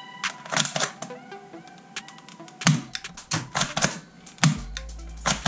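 A run of irregular sharp plastic clicks and clacks, louder in the second half, as a toy bead gun is handled and worked. Faint background music plays under it.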